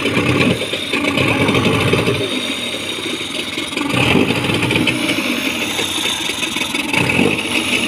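Suzuki DT30 two-stroke outboard motor running on a test stand with its lower unit in a drum of water, smoking heavily. The engine note swells a few times as it picks up and settles.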